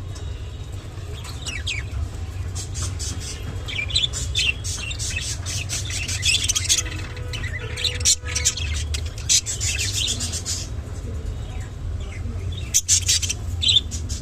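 A group of clearwing budgerigars chirping and chattering in quick, scratchy bursts, busiest in the middle and again near the end, over a steady low hum.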